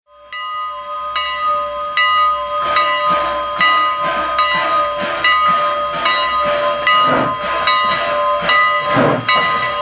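Steam locomotive No. 89 pulling away with its passenger train: its exhaust chuffs quicken from about one a second to about two a second as it gathers speed, over a steady hiss of steam and a steady whine.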